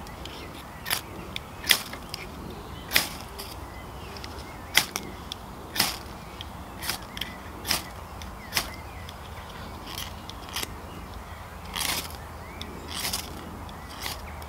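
Ferro rod scraped repeatedly with a striker over birch bark tinder to throw sparks: short, sharp rasps at an uneven pace of about one a second. The rod is very short, which the owner says makes it hard to strike well.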